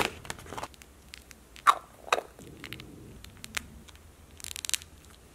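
Handling noise from a cardboard box and small plastic figure pieces: scattered light clicks, taps and scrapes, with a brief quick rattle of ticks about four and a half seconds in.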